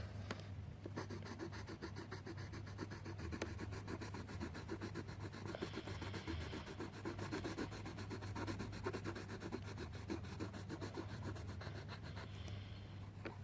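Coloured pencil scribbling on paper in rapid back-and-forth strokes, filling in a drawing.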